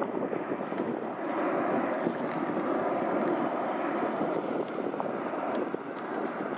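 Twin CFM56-7B turbofans of a Boeing 737-800 climbing out after takeoff, a steady broad jet rumble that drops slightly in level near the end as the aircraft moves away.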